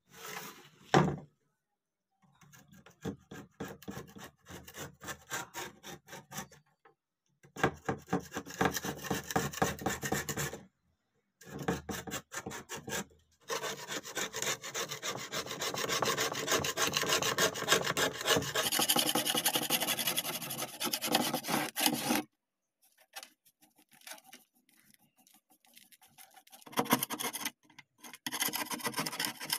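A thin metal scraper rasping thick, flaking rust crust off a steel cleaver blade in quick, rough strokes, in several stretches that stop and start abruptly. A single knock about a second in.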